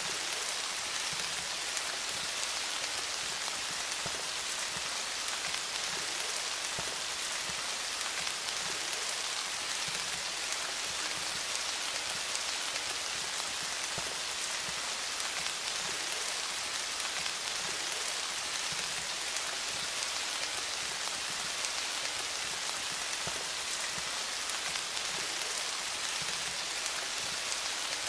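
Steady rain falling on a surface: an even, bright hiss of many small drops with fine ticks of individual drops, unchanging throughout, with no thunder.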